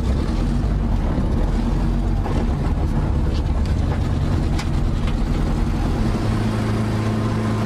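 Turbocharged Honda Civic hatchback's four-cylinder engine running hard under load, heard from inside the cabin. About six seconds in it settles into a steady, even drone.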